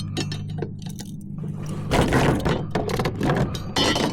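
A landed trout flopping and thrashing on a kayak, with clinking and rattling at first, then louder bursts of thrashing about halfway through and again near the end.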